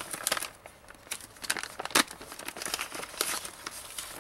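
A clear plastic bag crinkling and rustling in the hands as it is opened and a part is pulled out of it: irregular crackles, the sharpest about two seconds in.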